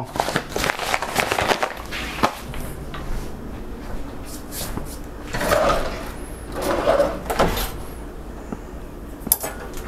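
Hands pressing and patting a ball of pie pastry dough on a floured wooden tabletop: irregular knocks and scuffs.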